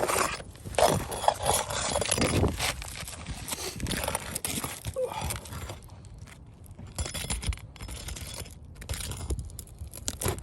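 Irregular scraping, rustling and clinking as old asphalt roof shingles are handled and worked loose, louder in the first few seconds.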